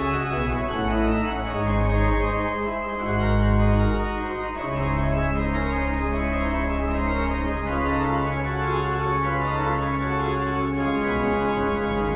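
Organ music playing slow, sustained chords over deep bass notes; from about five seconds in, one low bass note is held for several seconds under the chords.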